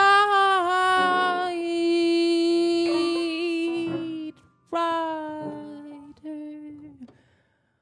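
A woman's voice singing long, wordless held notes: one tone held for about four seconds, a brief break, then a second held tone that fades out near the end.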